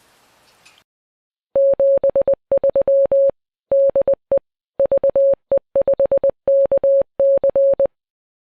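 Morse code sent as a single steady beep tone, a string of short and long beeps in groups lasting about six seconds.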